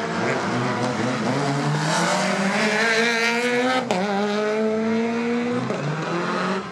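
Rally car accelerating hard, its engine note rising steadily, then a sharp click and a drop in pitch about four seconds in as it shifts up, before it climbs again and eases off near the end.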